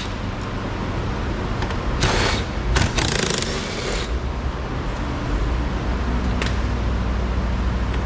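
A steady low rumble, with a few short scraping and rustling noises about two to four seconds in and a single click later on, as a screw is worked out of a car's door trim panel.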